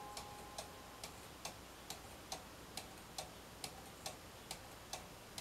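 Cuckoo clock movement ticking steadily and faintly, about two and a half ticks a second. The last ringing note of the clock's tune dies away in the first second.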